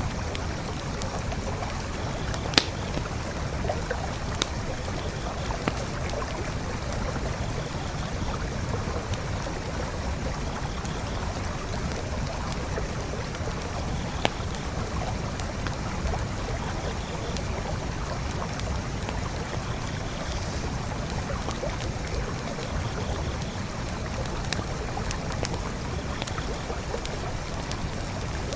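Steady rush of a flowing forest creek, with a campfire crackling over it in occasional sharp pops; the loudest pop comes about two and a half seconds in, another near the middle.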